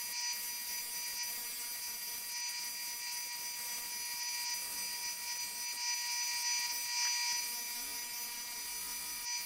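Bench disc sander running with a steady whine, a thin sheet-metal blank held against the disc and ground to shape for a crankbait's diving lip, giving a high grinding hiss.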